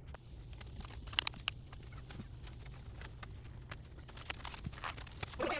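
Doll packaging being handled as hands free a doll from its box: scattered small clicks and rustles of cardboard and plastic, a couple of them louder about a second in, over a steady low hum.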